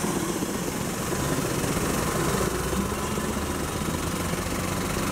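A car engine idling, a steady low hum that holds even throughout.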